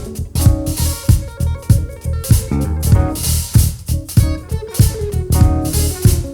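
A live band playing an instrumental funk groove, with drum kit, bass guitar and guitar on a steady beat.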